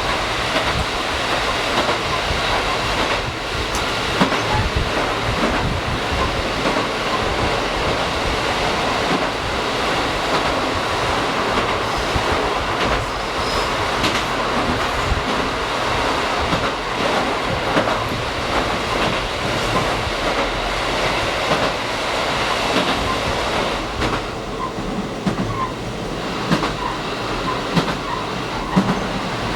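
Steady running noise of a diesel limited-express train heard from inside at the front, with wheels on the rails and scattered clickety-clack clicks from the rail joints. The noise eases a little about twenty-four seconds in.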